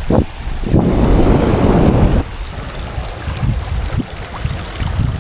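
Rushing river water with wind buffeting the microphone as a low rumble. A louder rush of water comes in about a second in and cuts off suddenly a second and a half later.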